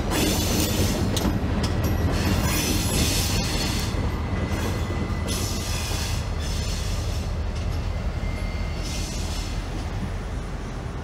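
Freight train rolling slowly through a street crossing: a steady low rumble of the diesel locomotive and the cars' wheels on the rails. A high hiss swells and fades several times over the top.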